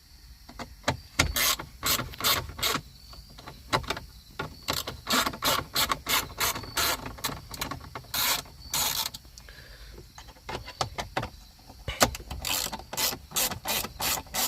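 Ratchet with a Torx T20 bit clicking in short quick runs as it backs out the screws holding the centre display screen of a 2012 Audi S5.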